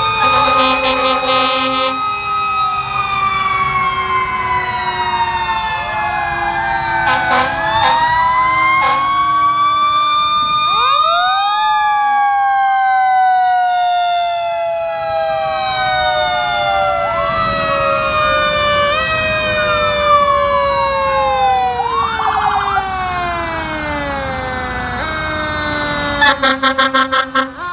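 Fire truck sirens wailing as the trucks pass, several at once, overlapping in long slow glides that rise and then fall in pitch. Near the end a fast pulsing siren sound starts up.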